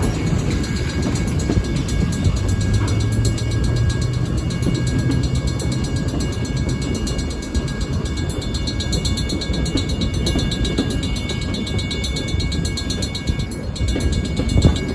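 Empty bulkhead flatcars of a freight train rolling past a grade crossing, wheels rumbling and clattering on the rails, with the crossing bell ringing steadily.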